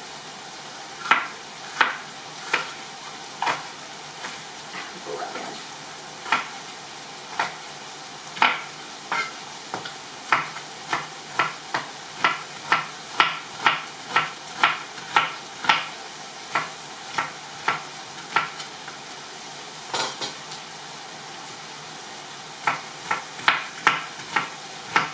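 A knife chopping onions into large pieces on a cutting board: sharp, irregular knocks in quick bunches, with a pause of a few seconds past the middle. Under it, the steady sizzle of chicken frying in a pan.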